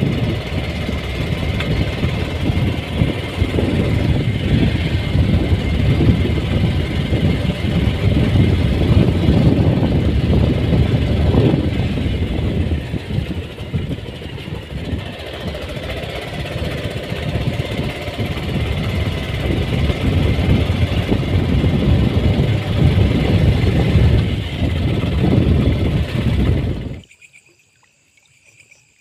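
Motorcycle engine running while riding over a rough dirt track, with a low rumble and wind noise on the microphone; it stops suddenly near the end.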